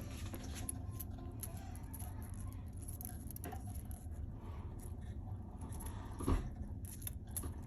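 Scattered small clicks and light handling noises over a steady low hum, with one louder knock about six seconds in.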